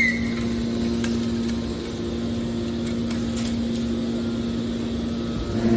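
Steady machine hum, typical of a scrap metal baler's hydraulic power unit running. The hum grows louder and deeper just before the end.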